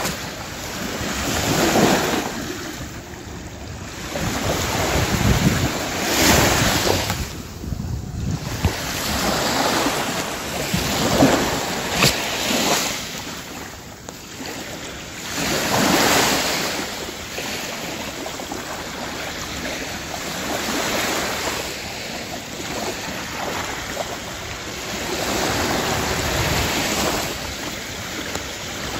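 Small sea waves washing onto a sandy beach, the surf swelling and ebbing every few seconds.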